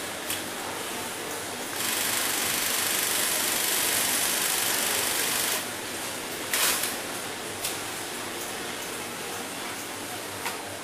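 Pants sewing machine running, with a louder steady stitching run from about two seconds in that stops a few seconds later, followed by a sharp click.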